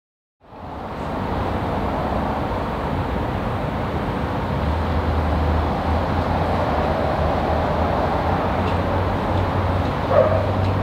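Diesel locomotive of a V/Line passenger train running with a steady low rumble, its hum growing stronger about halfway through. A short higher sound comes near the end.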